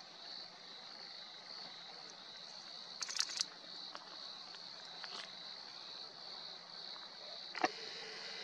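Quiet night ambience: a steady high-pitched chirring with a short cluster of clicks and knocks about three seconds in, and a single sharp click near the end.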